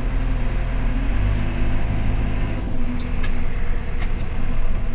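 Backhoe's diesel engine running while the machine is driven, its note changing about a second in and again halfway through as gears are shifted, with a couple of short clunks near the end.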